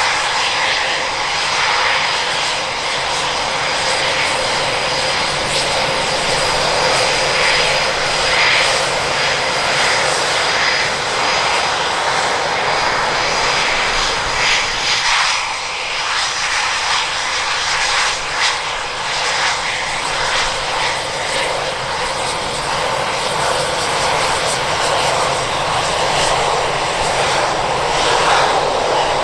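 Eurofighter Typhoon's twin EJ200 turbofan jet engines running steadily: a loud rushing noise with a thin high whine held throughout.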